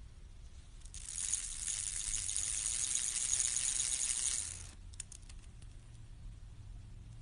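Metal bicycle-chain fidget spinner spun by hand: its roller chain runs fast over the two sprockets in a high metallic rattle lasting about four seconds. It stops abruptly and is followed by a few light clicks.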